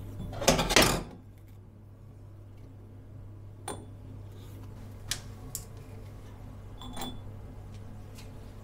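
Small cut pieces of linoleum dropped into a glass jar, ticking sharply against the glass four or five times, after a short loud clatter near the start as the scissors are set down.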